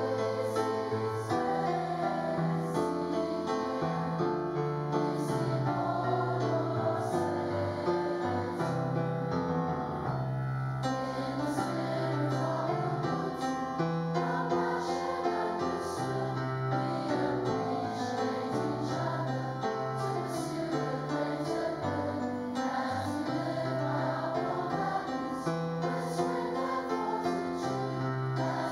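Assembly of voices singing the school song together with piano accompaniment, held notes over a slow stepping bass line.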